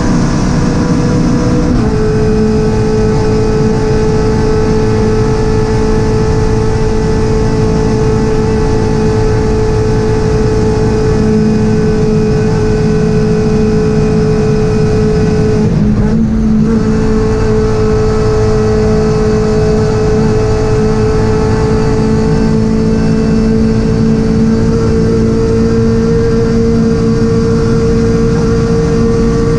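Toyota GT86 CS Cup race car's flat-four engine running hard at high, nearly steady revs, heard from inside the cabin over wind and tyre noise. The pitch steps down slightly about two seconds in, and the engine briefly lets off about halfway through before pulling hard again.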